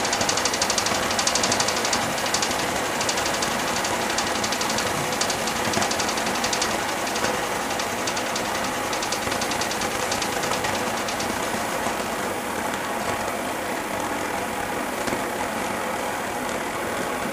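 Air-charged alpha-configuration Stirling engine, built on a Chrysler RV2 car air-conditioning compressor and heated by a propane burner, running unloaded with a fast, steady mechanical clatter. The clatter grows a little quieter and duller over the last few seconds.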